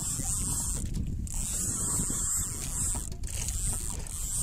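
Steady, rough wind and engine noise aboard a motorised outrigger boat (bangka) under way at sea.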